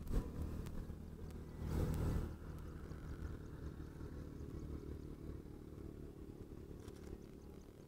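A low, steady engine hum, with a short louder rustling swell about two seconds in.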